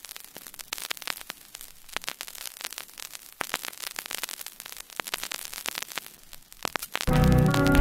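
Old-record surface noise between songs: dense crackle and pops over a faint hiss. Music comes in near the end.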